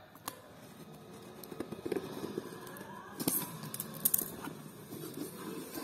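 Scissors cutting through the packing tape on a cardboard shipping box, then the taped cardboard flaps being pulled apart with crackling and tearing. There are two sharper tearing sounds about three and four seconds in.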